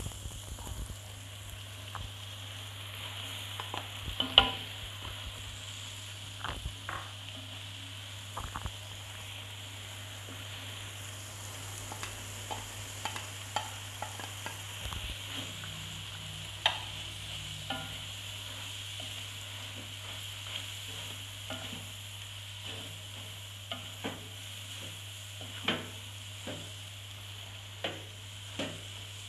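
Vegetables, tofu and egg stir-frying in a wok: a steady sizzle, with a spatula scraping and tapping the pan. The taps are scattered throughout, the loudest about four seconds in, and they come more often near the end.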